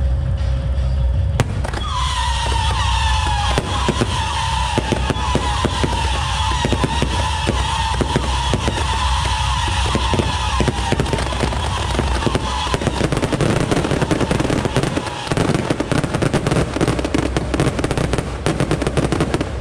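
Fireworks display: many whistles at once, falling slightly in pitch, over a rapid run of bangs from about two seconds in. After about twelve seconds the whistles stop and dense crackling takes over.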